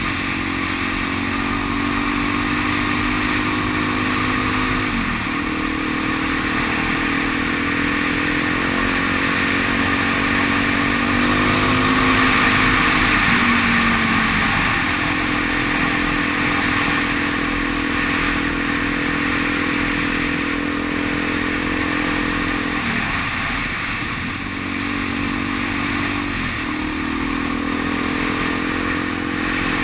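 Motorcycle engine running under way as it is ridden, its pitch climbing steadily through each gear and breaking briefly at gear changes about five, twenty-three and twenty-seven seconds in, with a fall in pitch around thirteen seconds. A steady rushing of wind and road noise runs under it.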